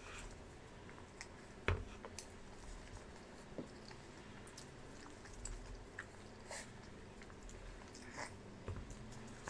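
A man eating deviled eggs fast: quiet chewing with scattered short wet smacks and clicks, the sharpest one nearly two seconds in.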